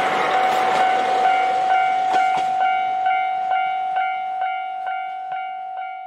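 A train passes at speed, its rushing rail noise fading away over the first few seconds, while the level crossing's warning bell keeps ringing at about two strikes a second. The bell stands out more and more as the train noise dies away.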